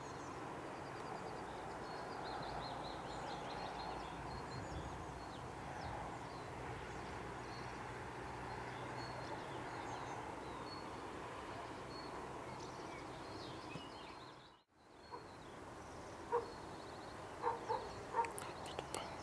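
Outdoor ambience of steady background noise with small birds chirping faintly. The sound drops out briefly about two-thirds of the way through, and a few sharp knocks and short calls come near the end.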